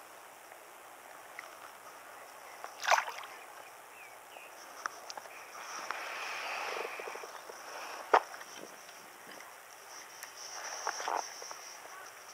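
Scattered knocks and light water splashes from handling a caught bass and tackle aboard a small fishing boat on calm water, with two sharper, louder knocks about three and eight seconds in.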